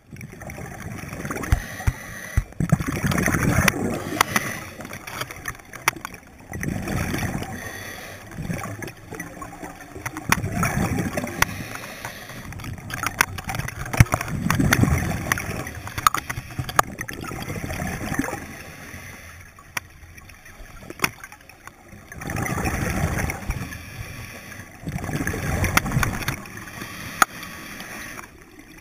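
Scuba diver breathing underwater through a regulator: bursts of exhaled bubbles every three to four seconds, with scattered sharp clicks between them.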